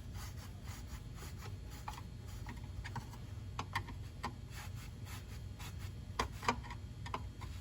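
Faint, scattered clicks and scrapes of metal parts as the garbage disposal's sink mounting assembly is screwed down, with a few sharper ticks now and then.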